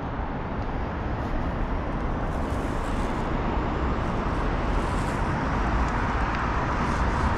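Steady outdoor noise: a low rumble under a hiss, growing a little louder after about two seconds.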